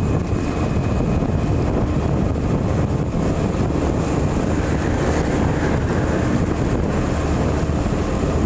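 Motorcycle engine running steadily at cruising speed, mixed with road and wind noise at the rider's microphone.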